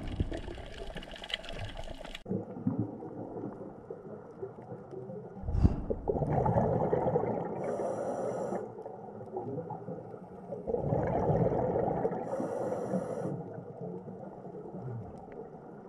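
Underwater ambience: muffled water rumble with gurgling bubbles, swelling up twice and fading, with a short low thump about five and a half seconds in.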